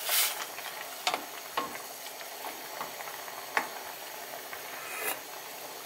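Kimchi soup at a rolling boil in a stainless steel pot, bubbling steadily with a few soft pops. A wooden spoon stirs it briefly at the start.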